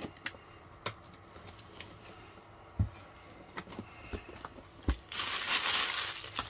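A cardboard parcel handled on a desk, giving a few scattered knocks and taps. About five seconds in, the box is opened and its tissue-paper packing rustles and crinkles, the loudest part.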